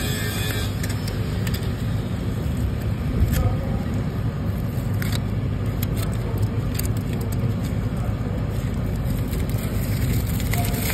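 Ceramic weld backing strip being pulled off the back of a steel tank weld seam, giving scattered clicks and crackles over a steady low rumble.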